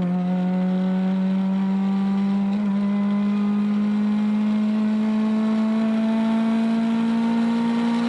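Toyota Corolla AE70's engine running steadily under way, its pitch climbing slowly and evenly as the car gathers speed.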